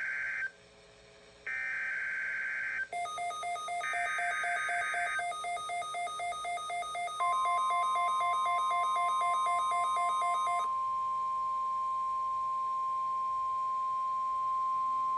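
NOAA Weather Radio SAME alert header: three short bursts of warbling digital data tones carrying the Required Weekly Test code, followed about seven seconds in by the steady 1050 Hz weather alert tone, which holds to the end. Over the third burst and the first part of the tone, a rapid pulsing electronic beep sounds for about eight seconds, then stops.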